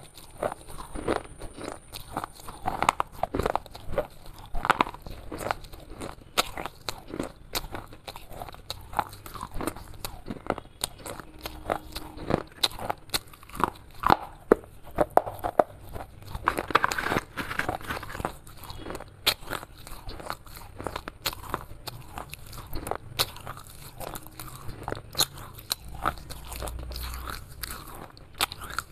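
A person biting off and chewing pieces of broken baked clay, giving irregular sharp snaps and crunches, several a second.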